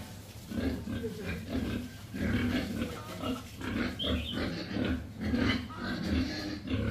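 A pen of young pigs grunting, many short calls in quick succession, with one higher-pitched call about four seconds in.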